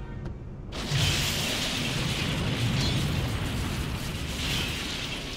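A commuter train striking a semi-trailer at a grade crossing: a sudden loud crash about a second in, followed by several seconds of crunching and scraping metal as the train pushes through the trailer.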